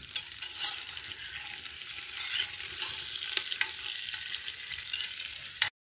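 Sliced onions sizzling in hot oil in a cast-iron potjie pot, with a spoon stirring and scraping through them. The steady sizzle cuts off suddenly near the end.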